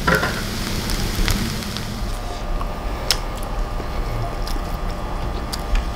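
Freshly cooked fried rice sizzling in the hot wok with the flame off, fading out after about two seconds. A steady low hum follows, with a few light clicks of spoons against bowls.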